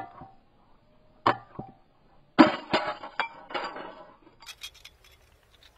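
Thin frosted glass of a 100-watt light bulb, already cracked and bulged by the heat of a firework fountain, being snapped and crumbled away by hand. A couple of sharp clinks come first, then a burst of cracking and tinkling glass about two and a half seconds in, then a few faint ticks of fragments.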